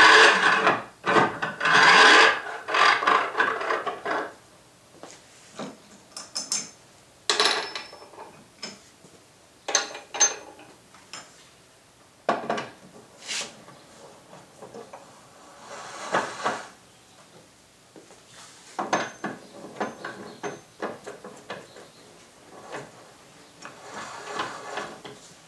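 The white oak front jaw of a Moxon vise sliding along its two steel Acme-threaded screws, with a rough scraping rub for the first four seconds or so. After that come scattered light knocks and clicks as washers and handwheels go onto the screws.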